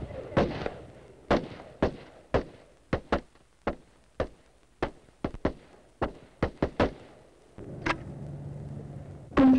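M16 rifles firing single shots on a firing range: an uneven string of sharp reports, several shots a second at times, with a louder shot near the end.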